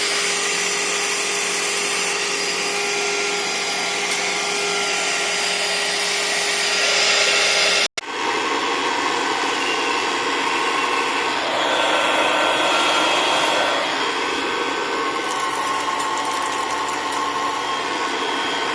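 Bagged vacuum cleaners running one after another: a steady motor whine with several high tones, broken off sharply about eight seconds in, then a second vacuum's motor running with a different whine.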